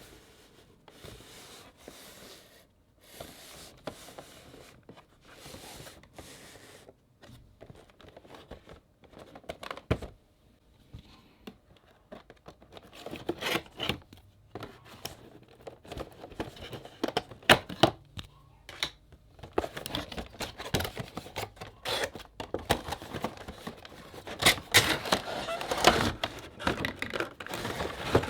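A Funko Pop figure's cardboard box and plastic packaging being handled and opened: rustling, crinkling and tearing with sharp clicks and knocks. Soft for the first dozen seconds, then much louder and busier as the box is opened.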